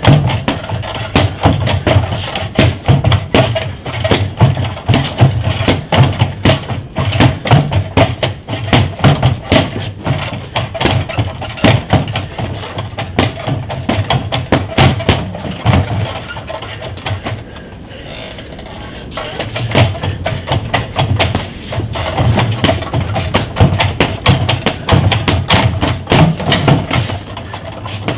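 Rapid, continuous punches from 16 oz boxing gloves on a free-standing Ringside Cobra Reflex bag: the padded striking heads smack and the spring-mounted stem rattles with each hit. The punching lets up briefly about two-thirds of the way through, then picks up again.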